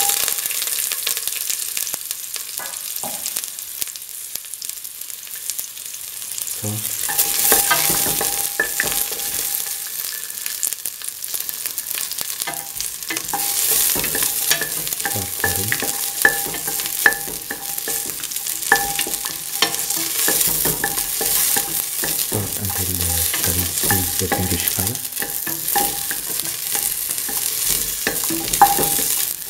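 Whole shallots frying in hot oil in a steel pan: a steady sizzle, with small clicks and scrapes as they are stirred around the pan.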